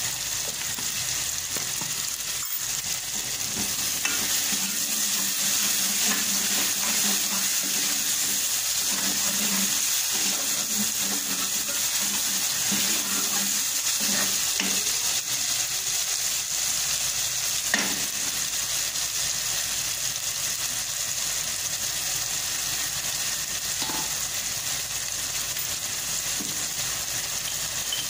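Tomato, onion and ginger-garlic masala sizzling in oil in a metal pot as the tomatoes cook down, with a ladle stirring and scraping the pot now and then. A sharp clink comes about 18 seconds in.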